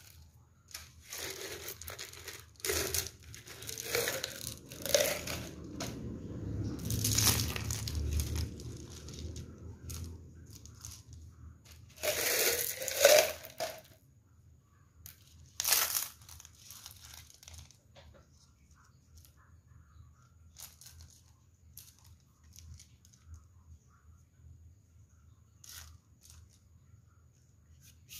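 Small pebbles being tipped out and shuffled by hand on a hard tabletop: rustling and clattering in bursts for the first dozen seconds or so, loudest near the end of that stretch. After that come a few separate clicks as single stones are set down.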